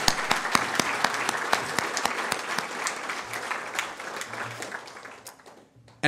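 Audience applauding, with many individual claps, gradually dying away near the end.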